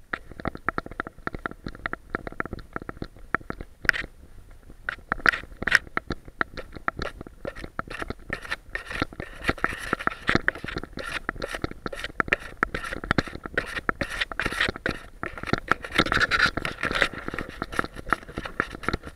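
A Boston Terrier digging in loose soil under a bush to bury a bone: a rapid, uneven run of scratching and scraping as paws and nose work the dirt and twigs.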